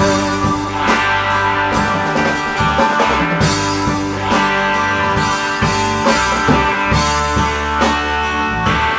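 Rock music from a cover band: guitar over a drum kit, with no singing.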